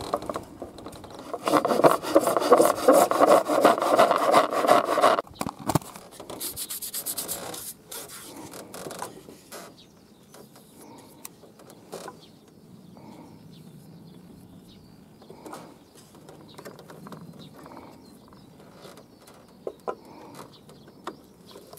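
Hand saw cutting through a plastic rain-gutter downspout pipe: rapid back-and-forth strokes for about four seconds, starting a second and a half in. This is followed by quieter handling clicks and rubbing of the pipe pieces.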